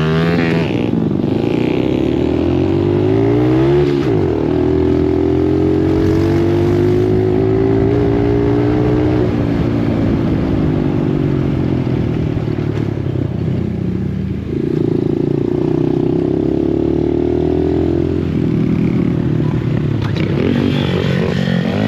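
Dirt bike engine running under way, its revs climbing, holding steady for several seconds and dropping back several times as the rider accelerates and backs off.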